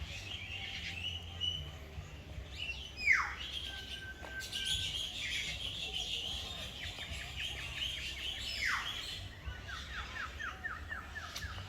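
Mixed birds calling. One bird gives a loud, sharply falling whistle twice, about five and a half seconds apart, over steady higher chirping, and a quick run of repeated notes comes near the end.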